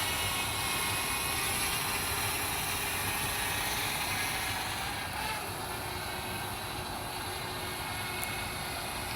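DJI Mavic Mini's four small propellers buzzing steadily in flight, a high whine of many tones over a hiss, slowly growing fainter as the drone flies off.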